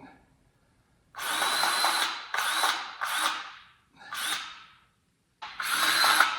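Grease gun forcing grease through the zerk fittings into the steering shaft bearings in five short powered bursts, each about half a second to a second long.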